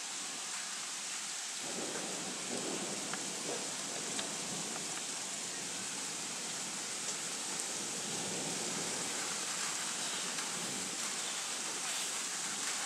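Steady hiss of falling rain. About a second and a half in, a long low rumble of thunder begins and keeps rolling under the rain.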